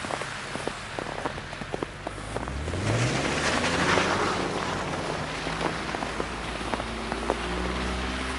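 Steady hiss of a heavy snowstorm with many small scattered ticks. About two and a half seconds in, a motor hum rises in pitch and grows louder, then levels off.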